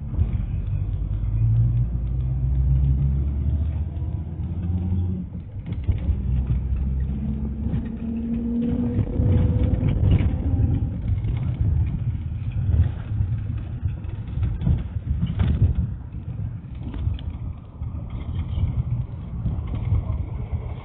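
Minibus engine and road noise heard from inside the cabin. The engine pitch climbs as the minibus accelerates, and scattered knocks and rattles come from the body over the road.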